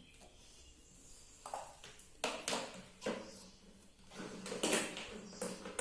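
Irregular knocks, clatters and rustles from parts and tools being handled and set down during the sewing machine motor fitting.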